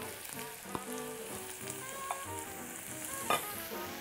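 Diced onion, carrot and zucchini sizzling in butter and oil in a cast-iron pot, stirred with a wooden spatula, with one sharp knock near the end.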